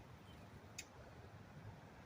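A single sharp tick about three-quarters of a second in, over near silence: the alarm tick of a parent bird calling near its fledgling.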